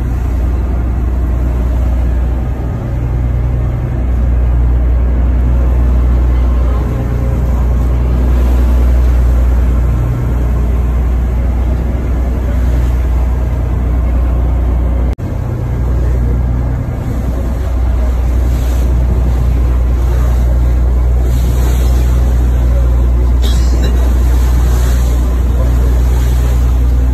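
Fishing boat's engine running steadily under way: a deep, constant drone with rushing water and wind noise over it, broken by a brief dip about halfway through.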